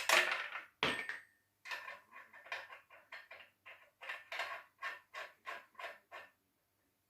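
Quick, repeated rasping strokes of a hand tool working metal, about three a second, with a louder clatter in the first second.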